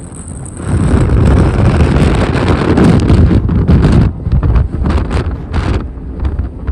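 Blizzard wind buffeting the microphone in loud, irregular gusts that jump up about half a second in.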